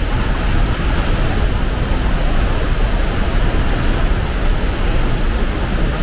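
Iguazu Falls close at hand: a loud, steady rush of heavy falling water with no break.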